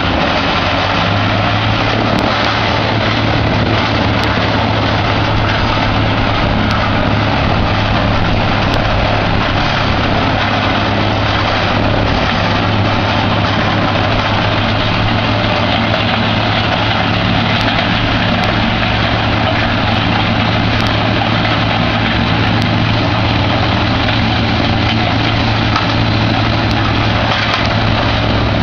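Vermeer HG525TX horizontal grinder running under load, its diesel engine and grinding drum making a loud, steady drone with a constant low hum as pine branches are fed in and shredded.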